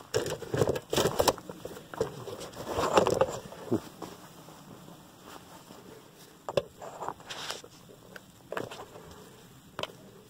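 Handling noise: irregular knocks, clicks and rustles, busiest in the first few seconds with one longer scuffing stretch around three seconds in, then thinning to scattered taps.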